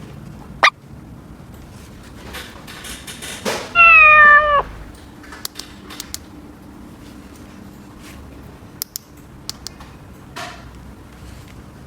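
A single meow, under a second long, pitch falling slightly before it cuts off, with light clicks and taps around it.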